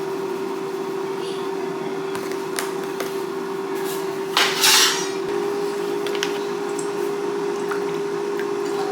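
Cooking scrambled eggs in a pan: scattered clicks and knocks of a utensil against the pan, with one louder scrape about four and a half seconds in, over a steady appliance hum.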